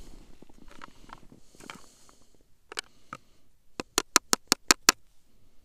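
Close handling rustle of clothing and hands, then a couple of clicks and a quick, even run of about seven sharp clicks near the end.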